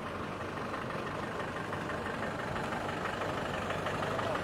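Engine of a police four-wheel-drive pickup truck running as it moves slowly toward and past, growing gradually louder as it approaches.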